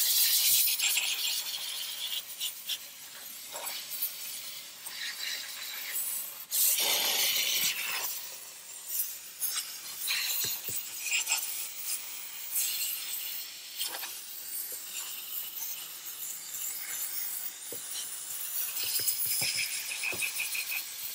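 Chief steam cleaner hissing from its nozzle while a bristle brush attachment scrubs engine-bay parts, with rasping brush strokes. The hiss comes and goes in swells, loudest about seven seconds in.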